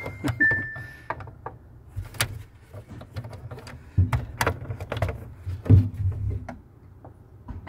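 Screwdriver and gloved hands working the wire terminals of an RV automatic transfer switch. Irregular clicks, taps and rattles of metal and plastic sound over a low rumble, with a brief high steady tone near the start.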